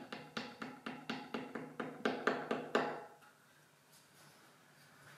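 Small hammer tapping on a wooden box, a quick run of light taps, about four or five a second, that stops about three seconds in.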